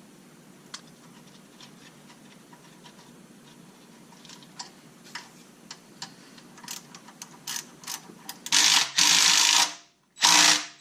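Light, irregular clicks of a hand ratchet tightening nuts on the starter's wiring terminals, coming more often as it goes. Near the end come two loud bursts of rushing noise, the first a little over a second long and the second shorter.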